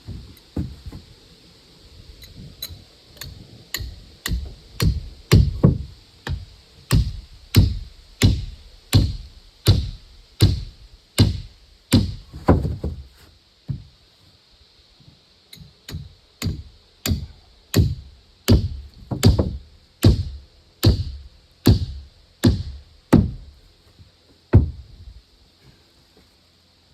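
A steady series of heavy blows of a tool on wood, about three every two seconds and uneven in strength, with a short pause about halfway through.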